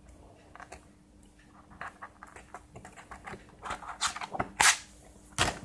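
Pages of a photo book being turned by hand: paper rustling and crackling in quick short strokes, growing louder and busier, with two sharp paper snaps near the end.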